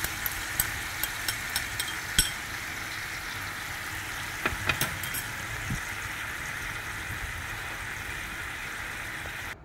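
Fish-sauce glaze with minced garlic sizzling and bubbling in a hot frying pan: a steady frying hiss, with a run of sharp crackles over the first couple of seconds and a few more about halfway through.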